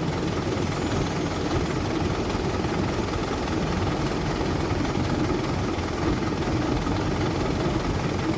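Excavator's diesel engine running steadily, a constant low rumble.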